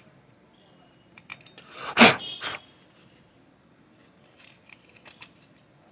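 Plastic clicks and knocks from handling an HP 88A laser toner cartridge while its OPC drum is being swapped, with one loud clatter of the drum and plastic housing about two seconds in.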